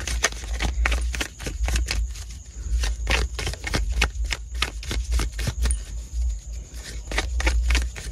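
Tarot cards being shuffled by hand, a rapid, irregular run of light clicks and slaps as the cards riffle against each other, over a steady low hum.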